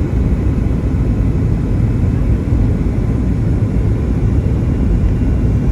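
Steady low rumble inside a Boeing 757-200's cabin on approach to landing: engine and airflow noise heard from a window seat.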